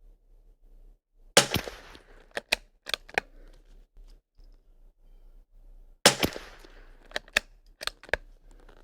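Two .22LR rifle shots, about five seconds apart. Each is followed by a quick run of four sharp metallic clicks as the bolt is worked to chamber the next round.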